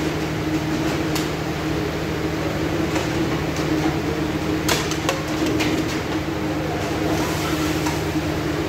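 A steady low mechanical hum, with a few sharp clicks scattered through it, the loudest about five seconds in.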